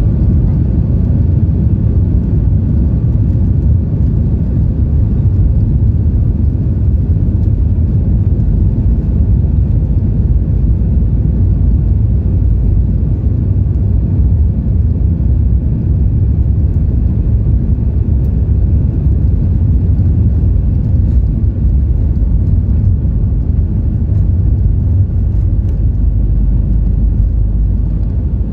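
Steady low rumble heard inside the cabin of a Boeing 737 MAX 8 moving along the ground, from its CFM LEAP-1B engines and the aircraft rolling on the pavement.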